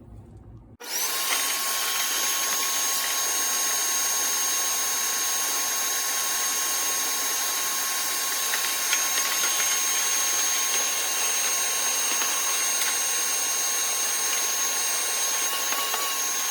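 Vacuum cleaner running steadily while the dryer's lint buildup is cleaned out. It switches on about a second in and off near the end, its motor giving a steady high whine over a loud hiss.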